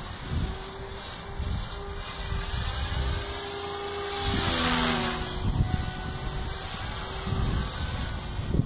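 500-size radio-controlled helicopter flying aerobatics: steady high whine of its motor and rotors. It grows louder and falls in pitch as it passes close about five seconds in. Wind buffets the microphone.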